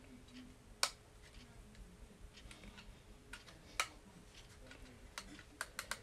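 Scattered light clicks and taps of packaging and a small plastic device being handled, with sharp clicks about one and four seconds in and a quick run of clicks near the end.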